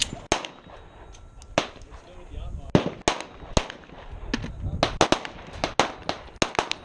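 Gunfire at an outdoor shooting range: about a dozen sharp shots at irregular intervals, some loud and close, others fainter.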